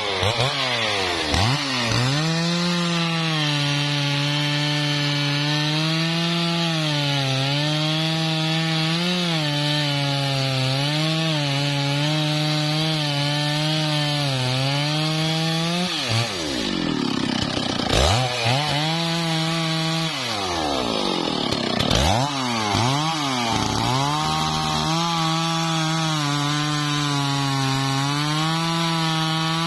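Stihl MS660 two-stroke chainsaw revving up and cutting into a teak trunk at full throttle, its pitch wavering as the chain bites into the wood. About halfway through the engine drops back toward idle, is blipped up a couple of times, then runs at full revs in the cut again to the end.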